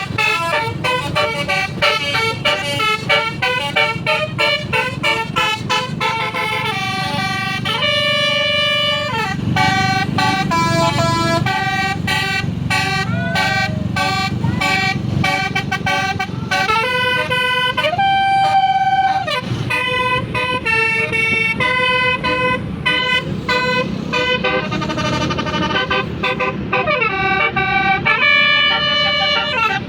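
Tour bus telolet horn, a set of electrically switched air-horn trumpets, playing a continuous tune of multi-note chords. Held notes alternate with quick runs of shorter notes, over a steady low rumble.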